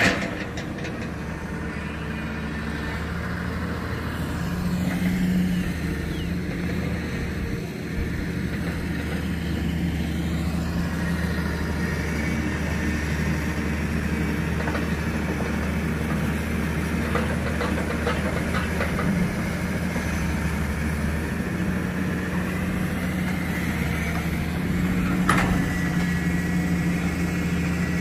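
Crawler excavator's diesel engine running steadily at work, swelling briefly about five seconds in, with a sharp metallic clank at the very start and another about 25 seconds in.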